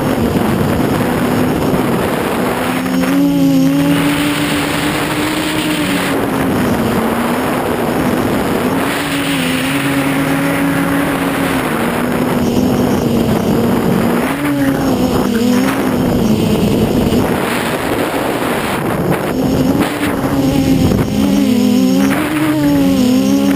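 RDX4 quadcopter's electric motors and propellers buzzing, heard through its onboard camera. Several pitches rise and fall, separating and crossing as the throttle changes through fast, low manoeuvres, over a steady rush of air noise.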